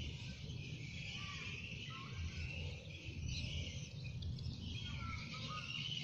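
Outdoor birdsong: small birds chirp now and then, a few short calls, over a steady high-pitched hiss and a low rumble.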